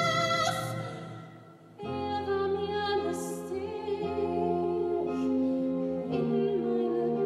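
Musical-theatre orchestra with a woman singing. A held chord dies away, then a new sustained chord comes in about two seconds in and changes near the end.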